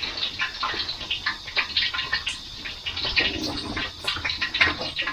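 Cooking oil heating in a wok, crackling and spattering irregularly as the water in it boils off, the sign that the oil is not yet fully hot.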